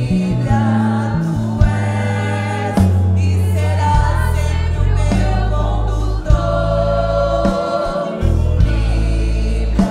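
Group of women singing a gospel worship song together, backed by a live church band with a deep bass line and drums.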